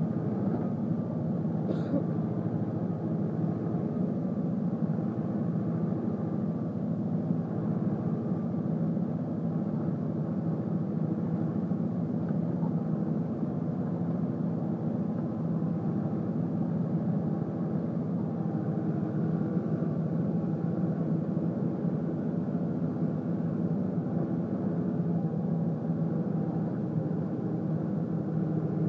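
Tractor engine running steadily under heavy load while pulling a seven-shank subsoiler deep through very hard ground.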